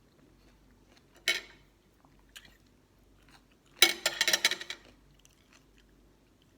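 Someone biting and chewing crunchy green mango and pickled crab salad close to the microphone. There is one sharp crunch about a second in, then a louder run of crackling crunches around four seconds in.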